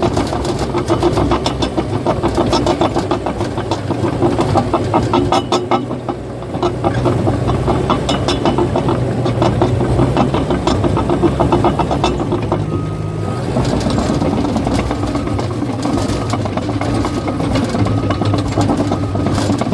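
Caterpillar bulldozer's diesel engine running under load, with a fast, continuous clatter from the steel tracks. The sound shifts briefly partway through.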